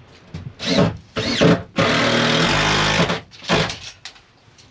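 Cordless drill run in two short bursts, the first rising in pitch, then held steady for about a second, then one more short burst.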